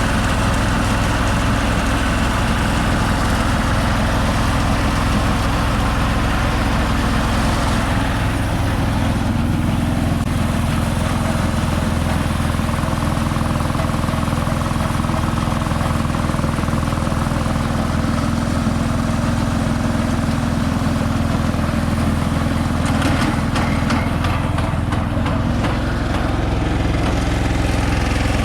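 Konma MT-S411D harvester running steadily, its small engine and machinery going at a constant speed.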